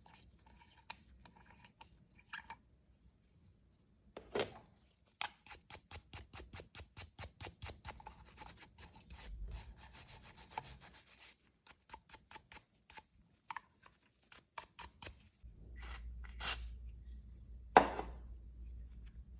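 Hand-rubbing strokes on a bronze censer, quick and even at about five a second for several seconds, then a few scattered taps and one sharp knock near the end.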